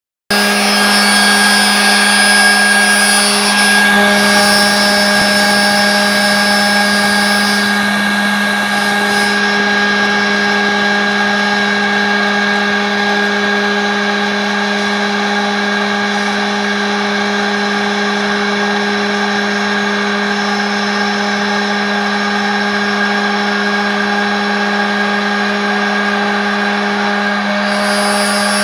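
CNC router spindle running at a steady speed with a constant high whine while its end mill cuts a pocket into a laminated wooden block. A higher hiss over the whine fades about nine seconds in and comes back near the end.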